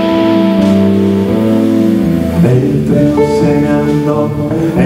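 Live band playing an instrumental passage of a rock song, with electric guitars, bass guitar, saxophone and drum kit; the chords change about two seconds in.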